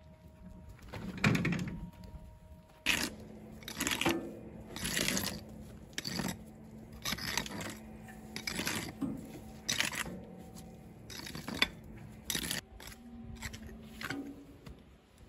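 Soil and grit scraped across concrete steps and a dirt path in repeated strokes, about once a second, with a faint steady hum underneath.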